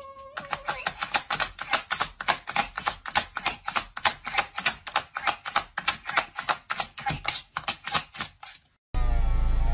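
A dog's whine tailing off, then a rapid run of sharp clicks, about four or five a second, as the dog paws over and over at recordable talking buttons, hammering the 'treat' button. The clicking stops shortly before the end.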